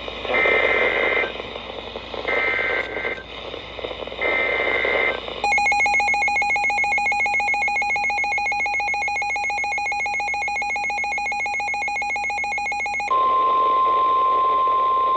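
Emergency Alert System signal from NOAA Weather Radio: three short, raspy bursts of SAME header data, then about eight seconds of the warbling two-tone EAS attention signal, then a single steady alert tone from about 13 seconds in.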